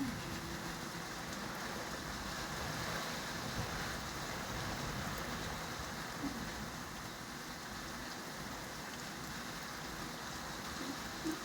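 Steady heavy rain from a nor'easter, an even hiss of rain falling on surfaces, with a few brief small spikes over it.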